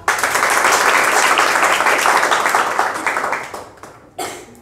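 A roomful of students applauding: quick, dense clapping that starts all at once and dies away after about three and a half seconds.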